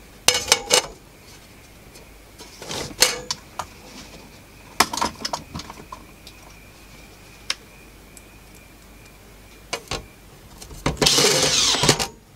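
Sheet-aluminium bottom cover of an amplifier being handled and laid onto the metal chassis: a series of separate clanks, clicks and knocks. Near the end comes about a second of dense scraping or grinding noise as a tool is put to it.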